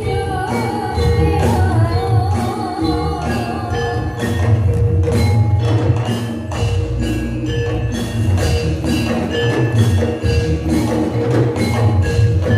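Javanese gamelan music accompanying a jathilan dance: bronze metallophones and gongs ring in repeating interlocking patterns over drums, with a wavering melody line above them for the first four seconds or so.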